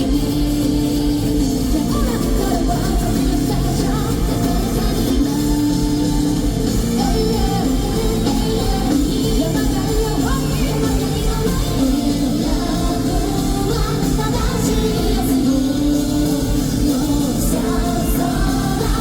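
Live rock band playing loud and without a break, with guitar, bass, drums and keyboard and a female lead vocal, recorded from the audience in a large arena hall.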